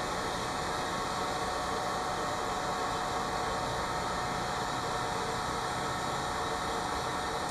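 Electric heat gun running steadily: an even whir and rush of air from its fan.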